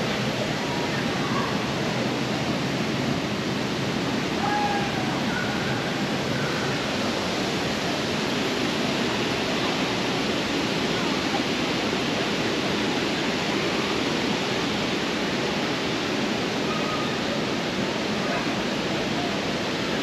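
Steady rush of splashing fountain water, with faint voices in the background.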